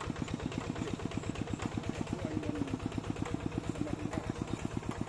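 Tractor engine running steadily with a rapid, even chugging.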